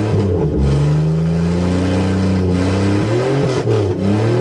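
Buick Regal's engine running and being revved: its pitch climbs in the first second, holds, dips and wavers about three and a half seconds in, then rises again. The car runs again after its no-start was traced to a corroded computer ground plate that has been cleaned.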